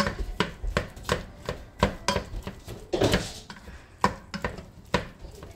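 Kitchen knife chopping potatoes on a cutting board, a quick, uneven run of knocks, about three or four a second.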